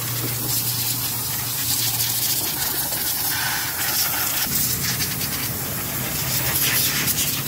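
Compressed-air blow gun hissing as it blasts dust and cleaner off an engine bay, the rush of air surging unevenly, over a low steady hum.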